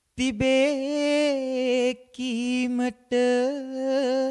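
A man singing solo and unaccompanied into a microphone: a Sinhala song line in three phrases with long held notes and vibrato, short breath pauses between them.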